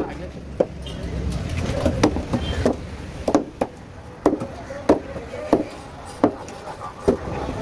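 Knife chopping a barramundi into chunks on a wooden block: a regular run of sharp knocks, roughly one every two-thirds of a second.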